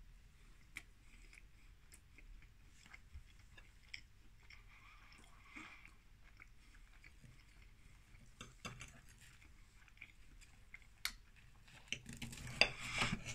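A person chewing a mouthful of steak pie with the mouth closed, faint wet clicks and smacks; near the end a few louder clicks.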